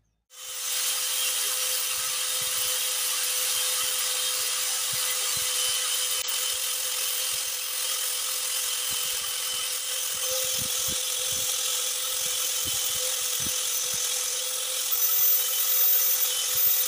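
Small handheld narrow-belt sander running steadily with a constant hum and the hiss of grinding, its belt sanding the black micarta spacer on an elk antler knife handle. It starts up just after the beginning and gets louder near the end.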